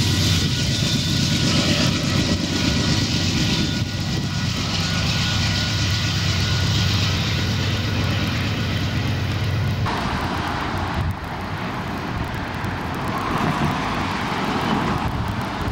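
Diesel locomotive engine rumbling low and steady. About ten seconds in, the sound cuts abruptly to the hiss of road traffic passing.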